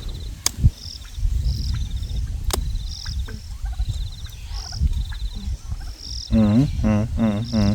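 Insects chirping: short high chirps and buzzy trills repeat every second or so over a steady low rumble, with a couple of sharp clicks. Near the end comes a short run of wavering, pitched calls.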